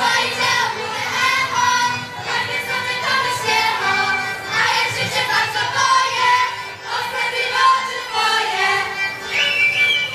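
A group of high voices singing a folk song in unison over folk instrumental music.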